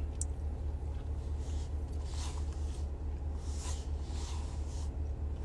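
A steady low hum, with a few faint soft hisses now and then.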